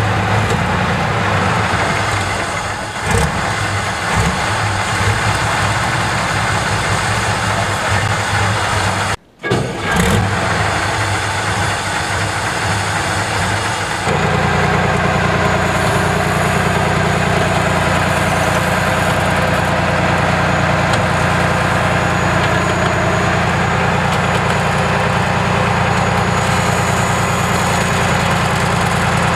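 Diesel engine of a heavy tracked dozer vehicle running as the machine drives and works over earth. The sound is uneven in the first half, with a brief cut-out about nine seconds in, then settles into a steady engine note for the rest.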